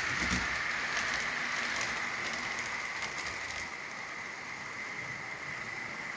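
HO scale model trains running slowly on the layout's track: a steady rush of wheel and motor noise with a high, even whine and faint ticks in the first few seconds, easing a little in the second half.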